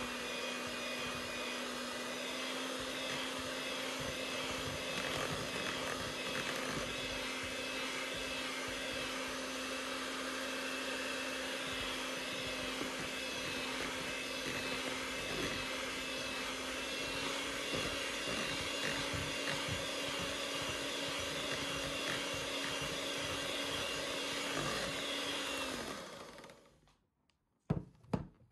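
Electric hand mixer running steadily at one speed, its beaters whipping cream cheese and butter in a bowl. The motor is switched off about 26 seconds in and winds down, followed by two quick knocks.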